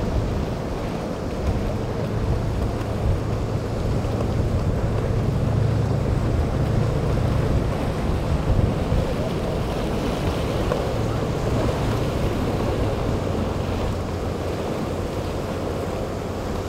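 Flybridge motor yacht's inboard engines running at cruising speed with a steady low drone, mixed with wash and breaking waves and wind buffeting the microphone.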